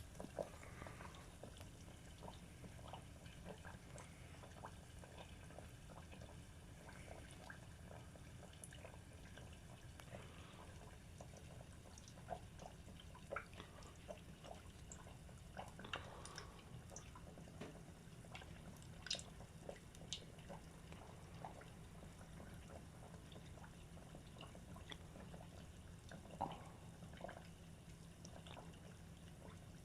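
Frozen croquettes deep-frying in oil in a tempura pot: faint, scattered crackles and pops over a low steady hum.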